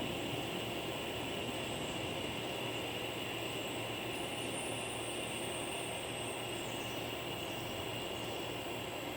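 Cicadas singing in a steady, unbroken high drone over a low, even rumble of rolling thunder.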